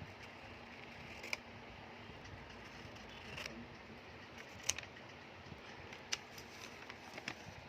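Small plastic toys and packaging being handled: a handful of sharp, separate clicks and snaps over a steady faint hiss.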